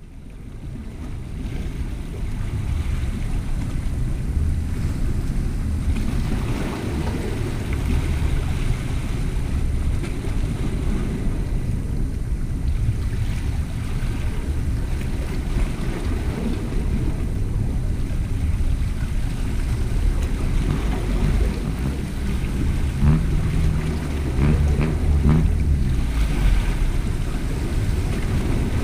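Wind buffeting the microphone in uneven gusts over sea water washing against shoreline rocks, with a few faint clicks near the end.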